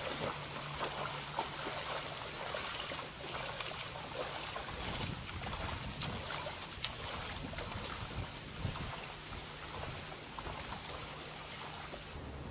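Rushing tsunami floodwater: a continuous noisy wash with crackling, and a deeper rumble through the middle.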